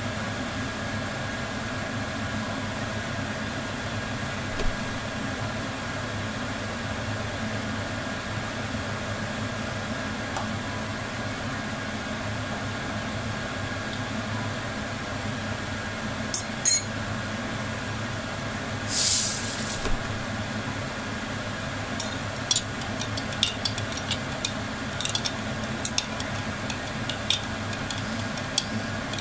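Kitchen work over a steady background hum: a couple of sharp clicks, a brief hiss about two-thirds of the way in, then repeated light clinking of kitchenware.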